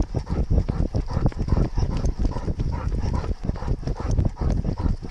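A weimaraner running at pace, its footfalls coming as quick, rhythmic thuds through a camera carried on the dog, over a constant low rumble.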